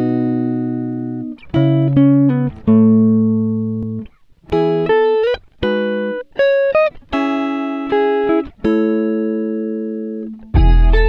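Background instrumental music: single notes and chords, each struck and left to fade, in a slow melody. Near the end a louder, fuller passage with deep bass comes in.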